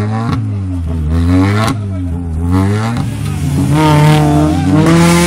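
Rally car engine running hard: its pitch dips and climbs twice, each dip marked by a sharp crack, then rises steadily as the car accelerates.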